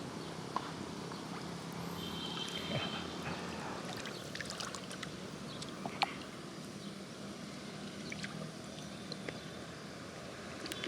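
Shallow field water sloshing, with small splashes and scattered clicks as someone wades and gropes through it by hand. A brief high chirp sounds about two seconds in.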